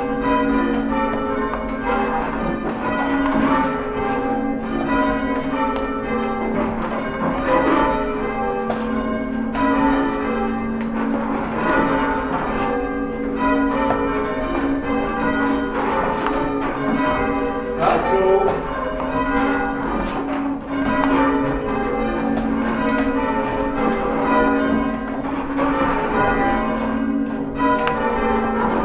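Church bells being change-rung: an unbroken run of overlapping bell strikes in a steady rhythm, each ringing on into the next. A sharp knock comes about two-thirds of the way through.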